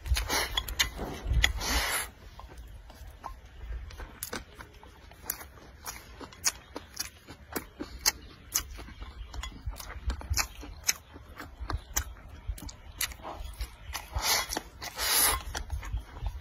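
Close-up eating: rice shovelled from a ceramic bowl into the mouth with wooden chopsticks, a couple of seconds of noisy scraping at the start and again near the end. Between, chewing with many small wet mouth clicks.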